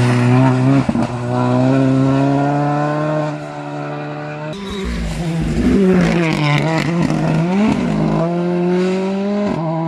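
Rally car engines at high revs on a special stage. The first car's engine note drops and then holds as it pulls away. About halfway through, a second car's engine rises and falls through quick gear changes, then settles into a steady high note.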